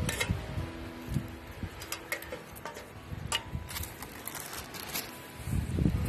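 Split kindling sticks being set into a tin-can hobo stove, giving scattered light knocks and clatters of wood against wood and the thin metal, with a low rumble swelling near the end.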